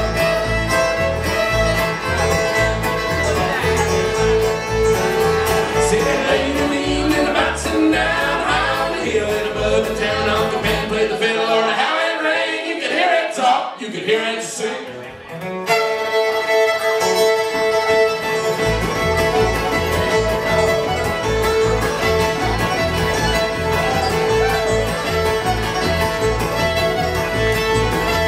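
Live bluegrass band playing: fiddle, acoustic guitar, upright bass and banjo. Around the middle the instruments stop for a few seconds while the band sings in harmony, then the full band comes back in.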